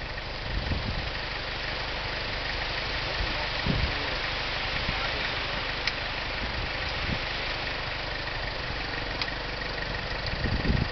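4x4 pickup truck's engine idling steadily, with a couple of faint clicks a few seconds apart and some low knocks near the end.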